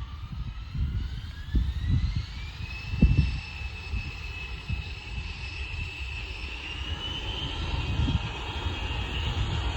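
Jet aircraft engines spooling up, a whine rising in pitch over the first few seconds and then holding steady. Wind buffets the microphone in gusts underneath, with the loudest gust about three seconds in.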